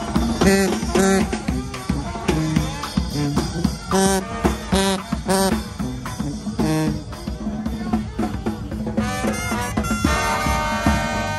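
New Orleans brass band playing second line music: drums keep a driving beat under the horns. Near the end the horns hold long, steady notes.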